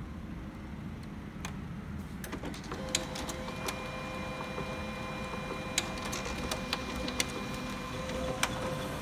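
HP Color LaserJet CP1025nw laser printer starting to print a report after its report button is pressed. A few clicks come first, then about three seconds in its motors start a steady whine, with sharp clicks now and then.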